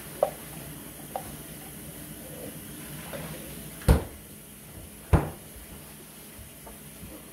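Light taps, then two sharp knocks about a second apart near the middle, as a small plastic slime container is handled.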